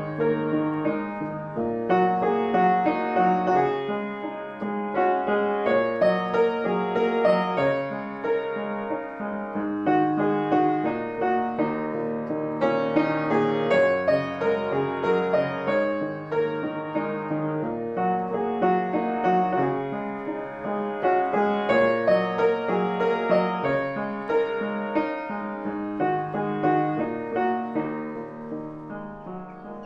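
Solo piano music: a melody over changing chords, the level sinking near the end.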